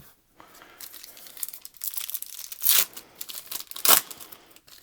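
Wax paper wrapper of a trading card pack being crinkled and torn open, with two louder rips near the middle and near the end.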